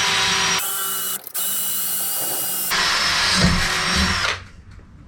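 Cordless drill boring a hole, running with a high motor whine whose speed changes a few times, stopping briefly about a second in, then winding down near the end.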